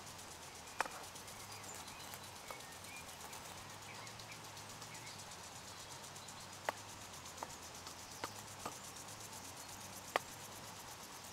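Faint sounds of a cream sauce simmering in a small frying pan as a wooden spatula stirs it. The spatula knocks the pan in a handful of sharp clicks: once a little under a second in, several times between about 7 and 9 seconds in, and once more near the end.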